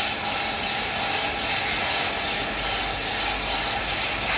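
Manual chain hoist being hauled hand over hand to lift a steel member, its chain clattering through the block and the pawl clicking continuously.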